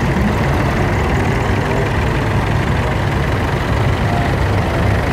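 Engines of several vintage tractors running as they drive slowly past in a line, a steady low engine note.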